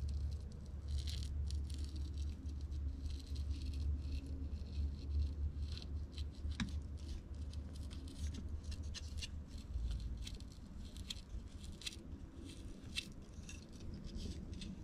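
Small clicks, taps and scrapes of handling as stripped ends of thick 8-gauge silicone cable are worked into drilled holes in a BMS circuit board on its aluminium plate, over a low steady hum.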